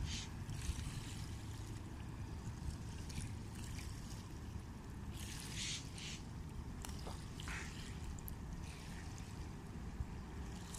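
Small river waves lapping and splashing at the bank in short bursts, the loudest about five seconds in, over a steady low rumble.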